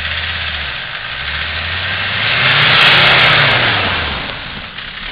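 Off-road 4x4's engine revving hard under load as it climbs a dirt mound, the pitch rising to a peak about three seconds in, then easing off as it comes over the top. A few sharp clicks sound at the loudest point.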